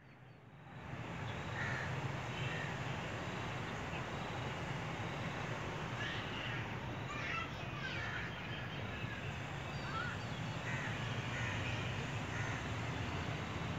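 Short bird calls, crow-like, coming in small groups every few seconds over a steady outdoor background hum.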